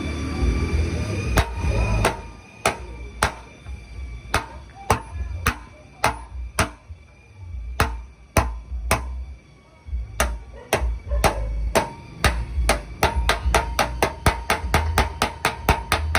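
Hammer tapping on car body sheet metal during paintless dent repair. The taps are spaced unevenly at first and quicken to about four a second near the end, each with a short metallic ring.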